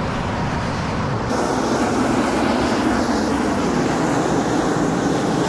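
Steam venting from a geothermal fumarole (ausol) with a steady rushing roar. It gets louder a little over a second in.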